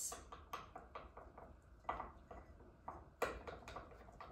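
A utensil stirring thick sourdough starter in a jar: soft, irregular clicks and knocks against the jar as the flour and water are mixed in.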